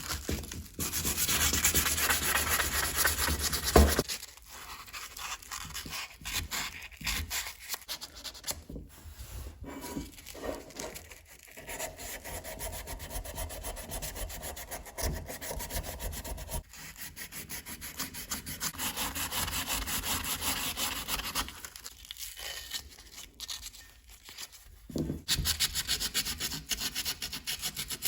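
Hand sanding on brass: abrasive paper rubbed back and forth in quick strokes. It is loudest for the first few seconds, softer and more broken through the middle, and picks up again in later stretches.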